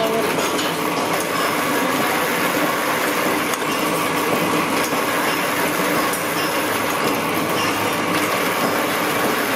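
Motor-driven nut tapping machine running steadily as it threads nut blanks, a continuous mechanical drone with no distinct strokes.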